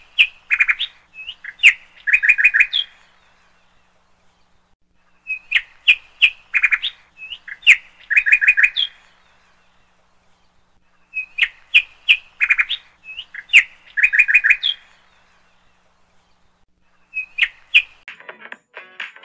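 Songbird chirping: a phrase of sharp chirps and short trills that repeats in the same form about every six seconds. Music starts near the end.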